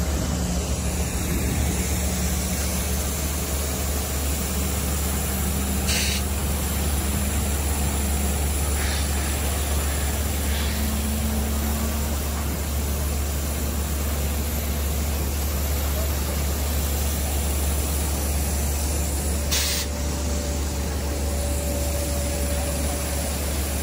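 Steady airliner cabin noise while parked before departure: a constant hiss of ventilation air over a low hum, with a couple of faint brief clicks.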